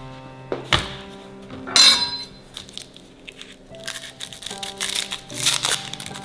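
Background music with steady held notes. A few light knocks sound over it, one with a glassy clink about two seconds in and a cluster near the end, as kitchen things are handled.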